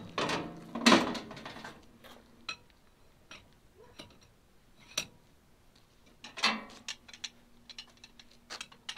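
Metal clanks and clicks from a large 1-inch-drive torque wrench being handled and put back together with its ratchet head at a truck wheel's lug nut. The loudest clatter comes about a second in, followed by scattered single clicks and a second burst of clanking about six and a half seconds in.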